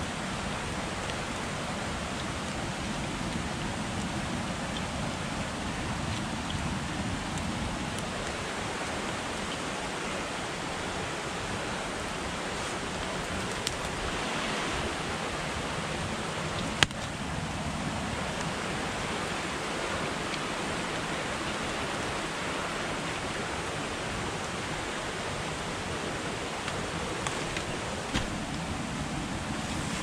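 Steady rushing water of a forest creek, an even wash of noise with no pauses. A single sharp click sounds about seventeen seconds in.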